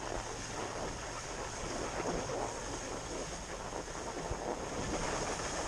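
Wind rushing over a GoPro's microphone during a ski run, with the steady hiss and scrape of skis sliding over snow.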